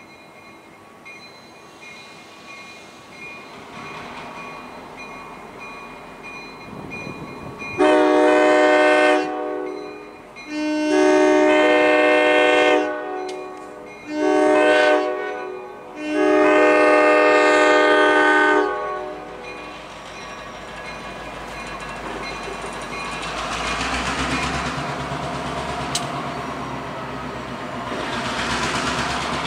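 Diesel locomotive multi-chime horn sounding four blasts, long, long, short, long, the pattern of the standard crossing signal. After it the GP38 and GP15T diesel engines throttle up with a rising rumble as the train starts off.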